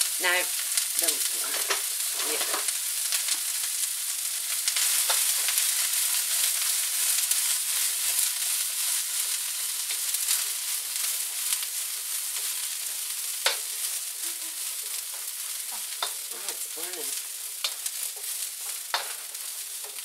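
Broccoli sizzling in canola oil in a very hot wok, with a wooden spoon stirring it and now and then knocking and scraping against the pan. The sizzle eases a little toward the end.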